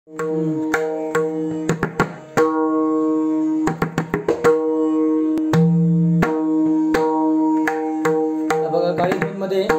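Pakhawaj treble head struck with the fingers, the head tuned to D sharp. Single strokes ring out on a clear, steady pitch, broken by short flurries of quick strokes about two seconds in, about four seconds in and near the end.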